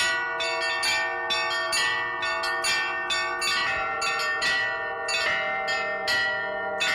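Carillon of tuned bells playing a melody, about three strikes a second, each note ringing on under the next.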